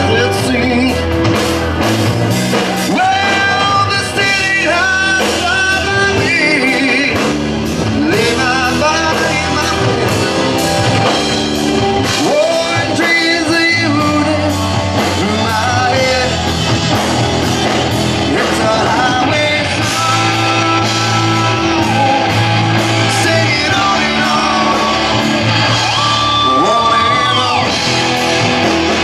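Rock song with a singing lead vocal over a full band.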